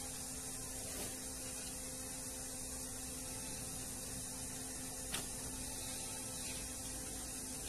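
Steady electrical hum with a constant hiss, and a faint click about five seconds in.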